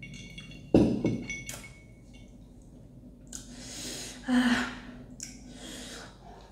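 A glass jar of juice set down on a table with a sharp knock about a second in, then several loud breaths and sighs blown out through the mouth, as from the burn of very spicy noodles.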